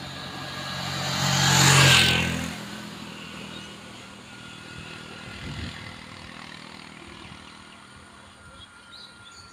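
Three-wheeled auto-rickshaw passing close by: its small engine hum grows louder, peaks about two seconds in, then fades away.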